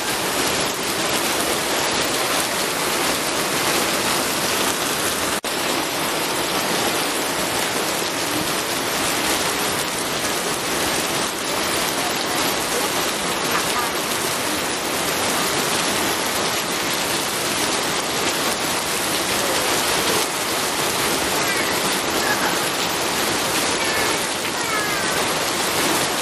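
Steady heavy rain falling, a dense, even hiss with a brief dropout about five seconds in.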